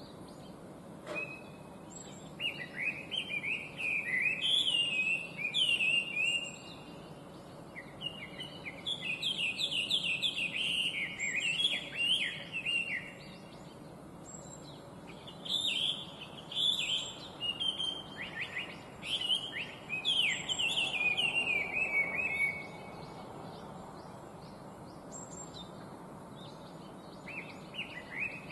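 Chinese hwamei singing: loud, varied phrases of rapid sweeping notes, delivered in bouts of several seconds with short pauses between them.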